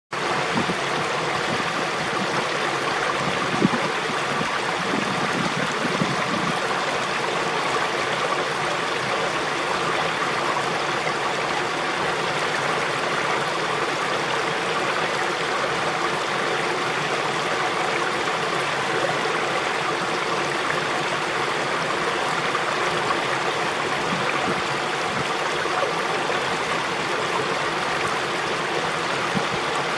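Steady rushing of running water, like irrigation water flowing through rice-terrace channels, with a couple of brief knocks in the first six seconds.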